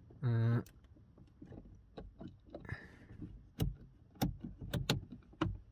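A brief hummed voice near the start, then repeated sharp clicks of a Renault 19's electric door-mirror switch being pressed and rocked, with no mirror motor running between them: the mirrors don't respond, which the owner puts down to a worn, ropey switch.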